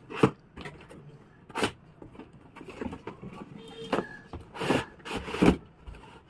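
Cardboard laptop box being handled and opened: cardboard sliding and scraping, with several sharp knocks, the loudest just after the start and about five and a half seconds in.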